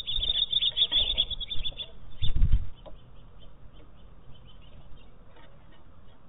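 Small songbirds chirping in quick high bursts, then about two seconds in a loud, low flutter of wings as a bird lifts off; fainter, scattered chirps follow.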